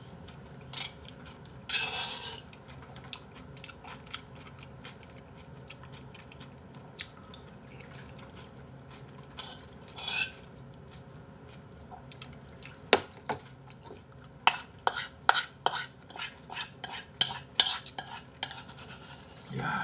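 A spoon scraping and clinking against a bowl of porridge as it is eaten, with a couple of longer scrapes and a quick run of clinks in the second half.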